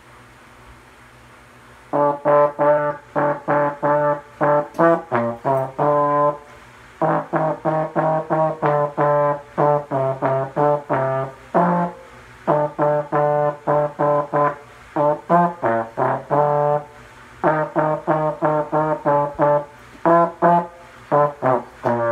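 Solo trombone playing a tune of short, separate notes in several phrases, starting about two seconds in, with brief pauses between phrases.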